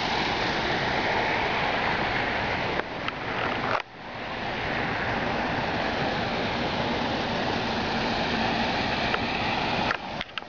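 Fountain jets splashing into a shallow pool: a steady wash of running water. It drops out sharply for a moment about four seconds in and again near the end.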